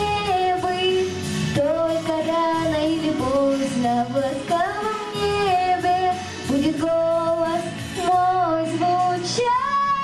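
A girl singing into a handheld microphone over a backing track, holding long notes that slide from one pitch to the next; near the end she rises to a higher held note.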